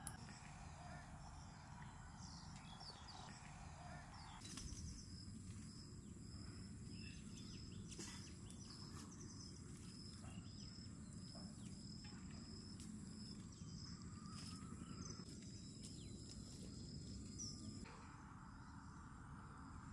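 Faint outdoor ambience: a steady low rumble with birds and insects calling. From about four seconds in, a high chirp repeats about twice a second until near the end, with a few faint clicks.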